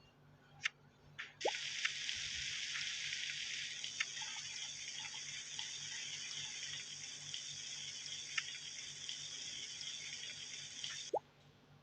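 Water running from a tap for about ten seconds, turned on with a click and a short rising squeak and shut off abruptly with another squeak. A few clicks come before it.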